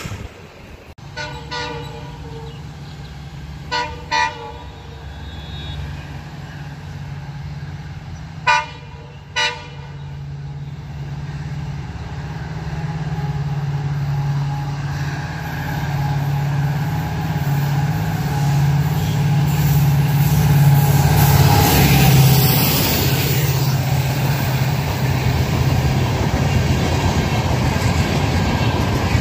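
An Indian Railways locomotive sounds its horn: one blast, then two pairs of short toots. The train then approaches and grows steadily louder as it runs past, with rail and wheel noise loudest about three-quarters of the way through.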